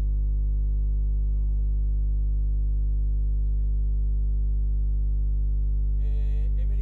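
Loud, steady electrical mains hum with a stack of overtones, an electrical buzz in the recording's sound system. A voice comes in faintly near the end.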